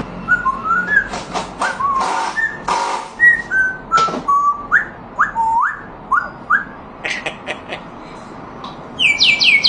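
Parrot whistling a string of short notes, many sliding upward, mixed with sharp clicks, then a quick run of high falling whistles near the end.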